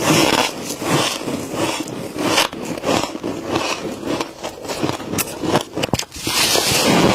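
Humidifier-grown freezer frost being scraped and crunched in repeated gritty strokes, roughly two a second, with a few sharp clicks near the end.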